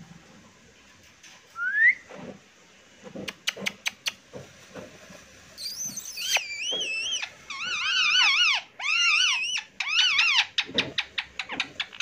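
Indian ringneck parrot calling: a short rising whistle about two seconds in and a few clicks, then from about halfway a run of warbling, wavering calls in four bursts.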